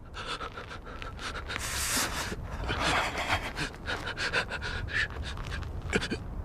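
A dog panting quickly, a steady run of short, breathy pants several times a second.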